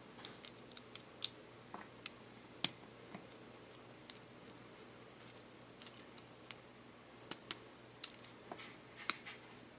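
Plastic Lego Technic parts clicking and tapping as they are handled and pressed together: an irregular scatter of small clicks, with a sharper snap a little under three seconds in and another near the end.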